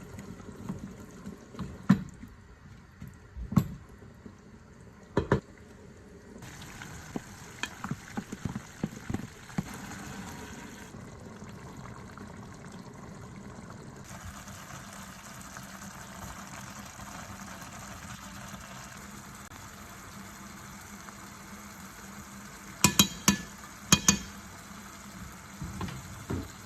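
Food cooking in a pot with a steady sizzle, and a utensil knocking against the pot now and then, with a quick run of clinks near the end.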